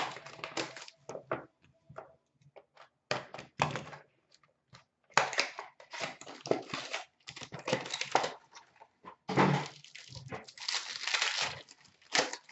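Hands tearing open and crinkling the foil wrapper of a hockey card pack and handling the cards inside, in irregular rustling bursts with a few soft thuds.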